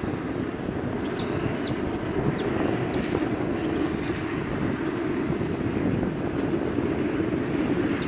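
Steady low outdoor rumble, with a few faint, short high ticks between about one and three seconds in.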